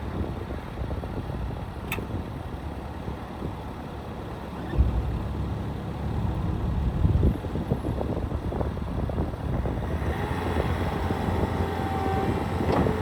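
Bobcat T66 compact track loader's diesel engine running, getting louder about five seconds in as it is throttled up while the machine works.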